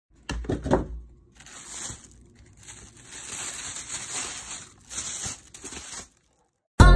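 Several bursts of crackling, rustling noise, with a couple of low thumps in the first second. Music comes in right at the end.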